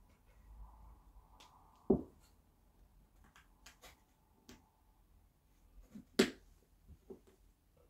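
MathLink plastic cubes being handled and clicked together: scattered small clicks, with two louder snaps, about two seconds in and about six seconds in.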